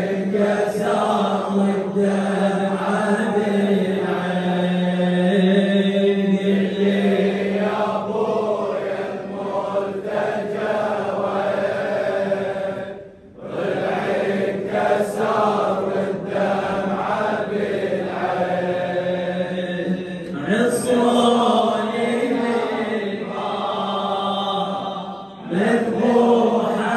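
Shia latmiyya lament: a male reciter chanting through a microphone, with a crowd of men chanting along in unison. The chant breaks off briefly twice, about halfway through and near the end.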